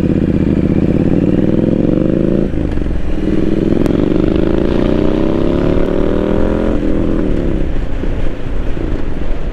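2017 Triumph Street Scrambler 900's parallel-twin engine accelerating away from a stop. It rises in pitch in first gear, upshifts about two and a half seconds in, climbs again through the next gear, and shifts up once more near the end.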